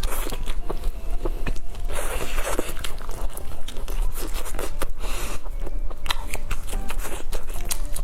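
Close-miked biting and chewing of pork knuckle, with many wet clicks and short smacking mouth sounds throughout.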